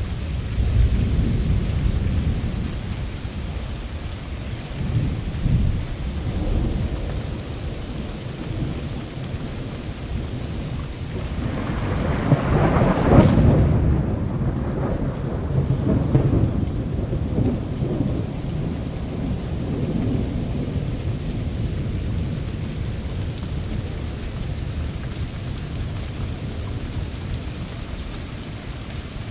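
Thunder rumbling over steady rain; the rumble swells to a loud peak about halfway through, then rolls away slowly.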